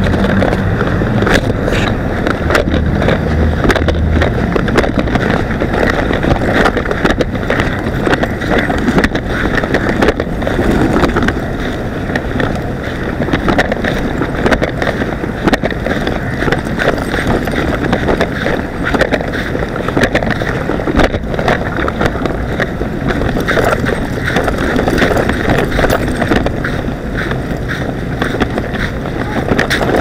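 Loud, steady rushing noise crowded with frequent small clicks and crackles, typical of wind and handling on a small action camera's microphone.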